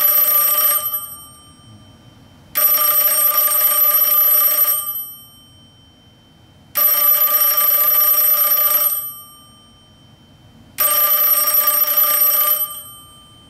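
Western Electric M1A internal telephone ringer, the small single-gong bell used in Princess phones, ringing in bursts of about two seconds with roughly two-second pauses between them. It starts near the end of one burst, then three more full bursts follow, each dying away briefly after the clapper stops.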